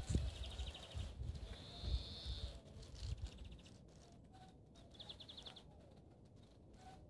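Quiet outdoor ambience with short, high, rapid bird trills, one at the start and another about five seconds in. Several low thumps come in the first three seconds.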